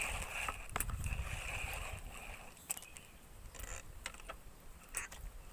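Water sloshing and splashing around an angler wading chest-deep, with a few sharp clicks scattered through it. A steady high buzz drops out about a second and a half in.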